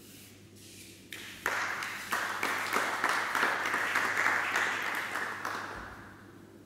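Clapping from a small group of people, starting about a second and a half in and dying away near the end.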